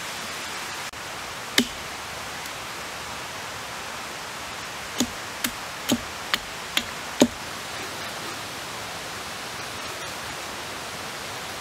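Hatchet striking a wooden stick: one sharp knock, then six quick knocks in a little over two seconds, over a steady hiss.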